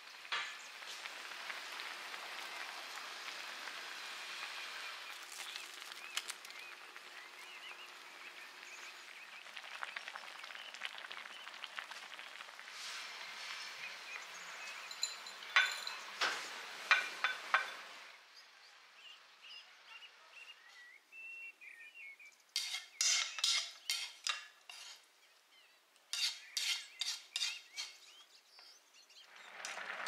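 Kitchen cooking sounds: a steady hiss of fish stew simmering in a black pot, then a spatula clicking and scraping in a glass bowl of sprouted seeds, loudest around the middle. In the quieter last third come two quick runs of sharp utensil clicks.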